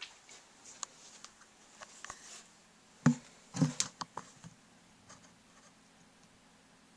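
Scattered light clicks and a few knocks, the loudest coming in a quick cluster about three to four seconds in, over a faint low steady hum.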